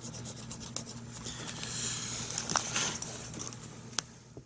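Hands rubbing and pressing Eternabond seal tape down onto the roof around the ladder foot: scratchy rubbing with scattered light ticks over a low steady hum.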